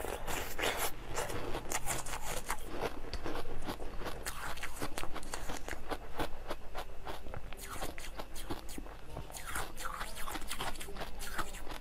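Biting and crunching of a frozen ice pop, a quick, irregular run of crisp cracks as the ice breaks between the teeth and is chewed.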